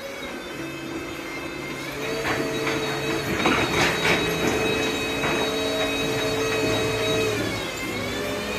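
Electric VNA turret truck running: a steady motor whine with rattling and knocks between about two and four seconds in. Near the end the whine dips in pitch briefly, then comes back.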